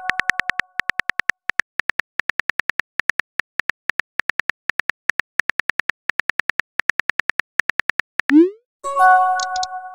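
Phone keyboard typing clicks, a fast even run of short taps as a text message is typed. A chime of several steady tones fades out at the start, and a quick rising blip and another chime come near the end.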